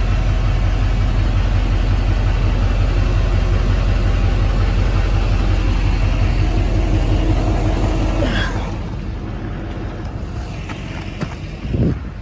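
2007 GMC service-body truck's engine idling with a steady low rumble, heard from underneath the truck. The rumble drops in level about eight and a half seconds in, and a short thump comes near the end.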